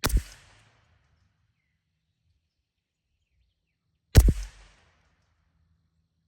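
Two shots from a CZ 457 bolt-action .22 LR rimfire rifle, about four seconds apart, each a sharp crack with a short echo tail.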